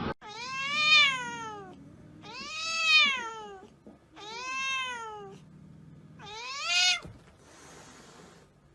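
Domestic cat meowing four times, long drawn-out meows that each rise and then fall in pitch, the last one cut off short.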